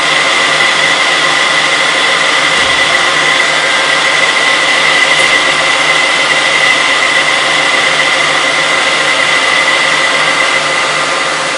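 Metal lathe running while facing an aluminium flange: a steady machine noise with a high, steady whine, which fades near the end.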